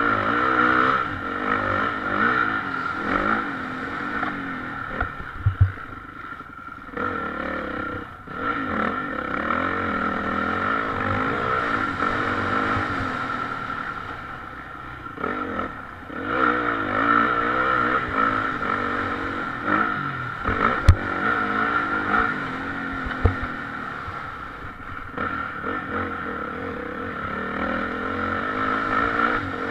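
Motocross bike engine heard from on board, revving up and down again and again as the rider accelerates, shifts and backs off through the corners. A few sharp knocks come through along the way.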